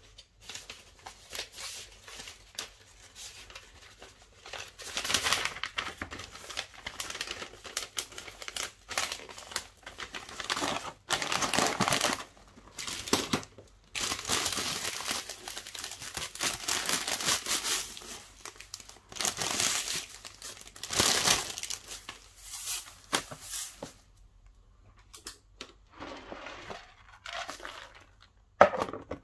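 Paper rustling and crinkling in irregular bursts as a cardboard box is packed by hand: a paper sheet laid over the contents and pink shredded crinkle-paper filler pushed in on top.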